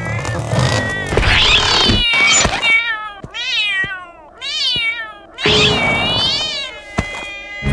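A cartoon cat meowing again and again: a string of drawn-out meows, each rising and falling in pitch, starting about two seconds in, with a few sharp clicks between them. The first two seconds are a louder, noisier stretch.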